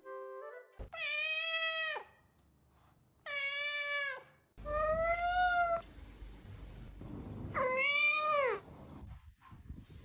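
Domestic cat meowing: four long, drawn-out meows, each rising and then falling in pitch, with pauses between them.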